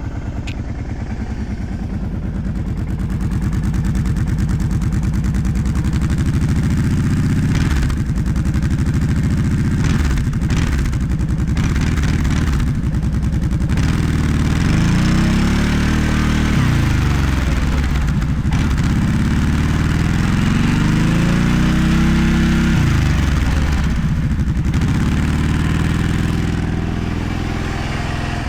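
Kawasaki Prairie 650 ATV's V-twin engine running through a muffler modified to be a little louder, revved up and dropped back to idle several times.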